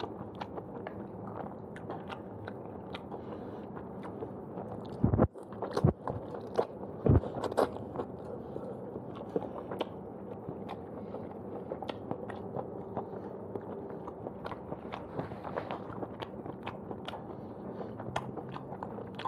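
Close-up eating of fried udon noodles with chopsticks: steady chewing with many small wet mouth clicks. A few louder knocks come between about five and seven and a half seconds in.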